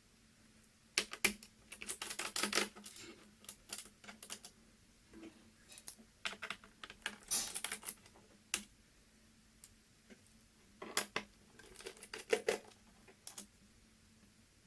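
Irregular small clicks, taps and brief scrapes of a screwdriver and small screws against a laptop's plastic bottom case as the case screws are taken out and set down.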